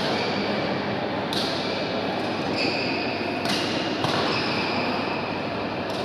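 Badminton rackets striking the shuttlecock during a rally: four sharp smacks spread over the first four seconds, echoing in a large hall over a steady background hiss.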